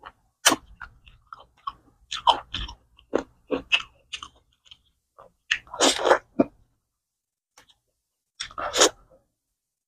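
A person eating close to the microphone: chewing and biting, heard as irregular short crunches and smacks, with a pause of about two seconds a little after the middle.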